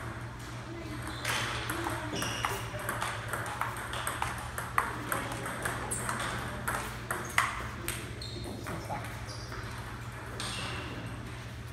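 Table tennis rally: the plastic ball clicking sharply off rackets and the table in quick, irregular succession. The clicks thin out about seven and a half seconds in, over a steady low hum.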